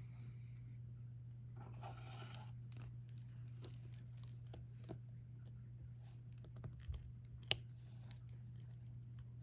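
Soft taps and clicks of a diamond-painting drill pen picking up resin drills and pressing them onto the sticky canvas, with a brief rustle about two seconds in and one sharper click near the end, over a steady low hum.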